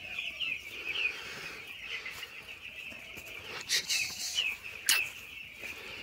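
A flock of broiler chickens peeping steadily in the shed, a continuous high chirping. A couple of sharp clicks break in near the middle.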